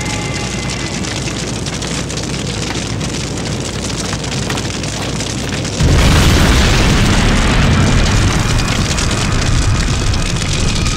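A large fire burning: dense crackling of flames over a low roar. About six seconds in it jumps suddenly louder, with a heavy low rumble.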